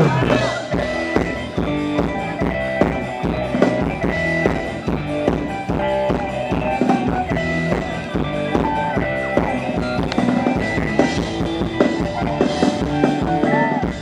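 Live band playing Thai ramwong dance music with drums and a steady beat.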